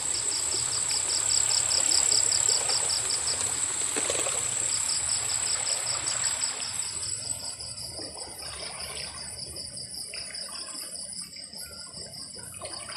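Insects calling: a steady high trill and a pulsed chirp about four times a second, which pauses briefly around four seconds in. Under them, shallow stream water trickles and stirs, louder at first and fading after about seven seconds.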